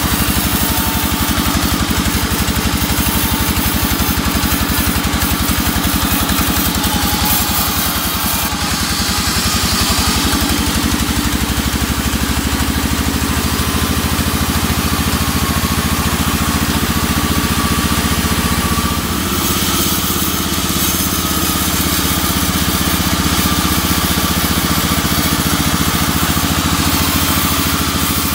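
Engine-driven band sawmill running steadily as its blade cuts lengthwise through a teak log: a continuous engine drone under the noise of the cut.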